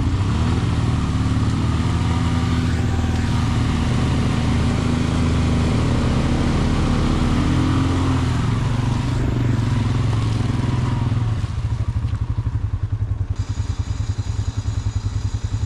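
Polaris Sportsman 570's single-cylinder engine running while its winch hauls a second ATV out of a mud hole, the stuck quad's wheels churning the mud. About eleven seconds in, the pull ends and the sound drops to an ATV engine idling with a steady pulse.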